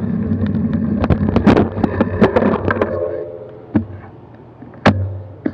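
Bicycle rolling to a stop, heard through a bike-mounted action camera. A steady low road and wind rumble is broken by a run of irregular clattering clicks and knocks. The rumble fades as the bike halts, leaving a few isolated sharp knocks.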